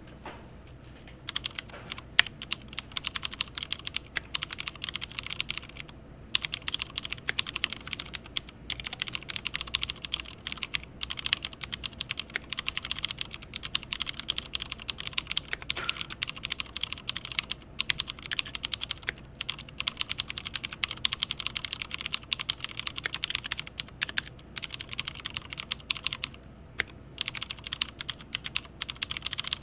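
Typing on an IKBC C104 mechanical keyboard with Cherry MX White clicky switches and PBT keycaps: a fast, continuous run of key clicks starting about a second in, broken by a few brief pauses. The clicks are fairly quiet for a click switch.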